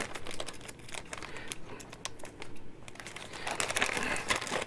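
Thin clear plastic bag crinkling in the hands as it is worked open: an irregular run of small sharp crackles, thinning out in the middle and busier again near the end.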